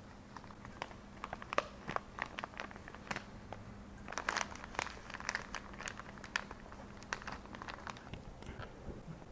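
Crinkling of a hop bag and rustling of dry whole-leaf hops as they are pushed by hand through a funnel into the neck of a glass carboy: a scatter of small crackles, busiest about four to five seconds in.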